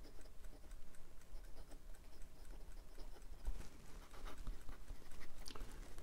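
Medium steel fountain pen nib writing on Clairefontaine paper: faint, irregular strokes and light ticks as the nib moves and touches down. The nib is very smooth, with very little feedback.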